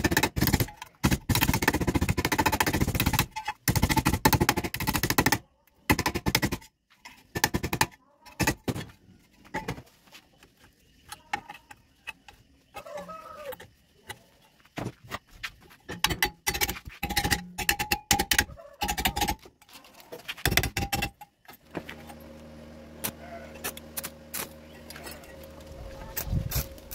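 Stick-welding arc crackling and spitting as thin galvanized square tube is tack-welded to a round pipe: one long run of crackle, then a series of short tacks with pauses between them. In the last few seconds a steady low electrical hum takes over.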